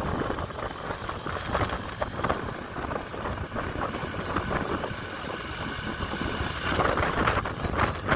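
Kubota M6040SU tractor's diesel engine running under load as it pulls a disc harrow through dry soil, with gusts of wind on the microphone.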